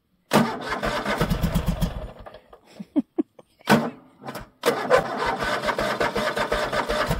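Husqvarna riding lawn tractor engine being cranked over by its starter in a cold start: two long cranking attempts with a fast, even rhythm and a few short noises between them, without the engine catching and running. It is cranking on too little choke; the choke needs to be left out longer to get it going.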